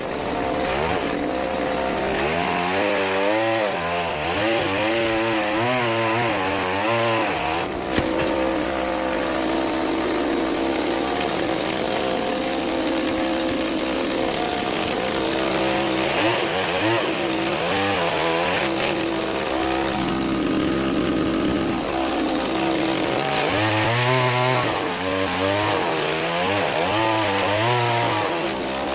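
Pole saw (chainsaw attachment on a long pole cutter) running and cutting, its pitch rising and falling with the load throughout.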